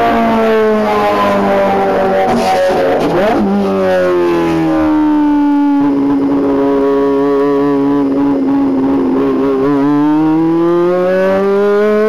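Ferrari racing car engine running on track: the revs fall over the first few seconds, with a quick upward blip about three seconds in, hold low and steady for several seconds, then climb again near the end.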